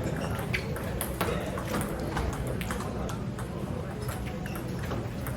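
Table tennis rally: a celluloid ball clicking off paddles and the table about twice a second for the first few seconds, then fewer hits.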